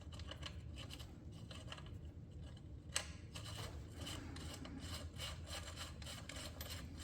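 Faint, rapid clicking and rubbing of a socket ratchet turning a nut onto a rear-axle bolt, getting busier partway through.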